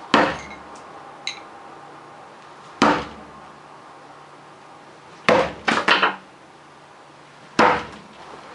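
Bo-shuriken throwing spikes striking a target, each hit a sharp thud with a short ring after it. Single hits come right at the start, near three seconds in and near the end, with a quick run of three hits around five to six seconds, plus two faint metallic clinks in the first second and a half.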